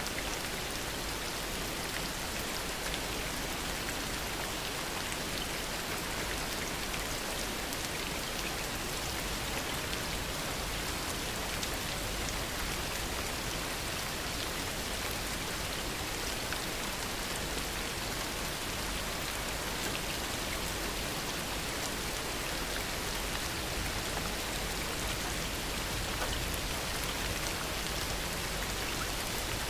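Heavy rain falling steadily, a dense even hiss of drops hitting surfaces, with no thunder.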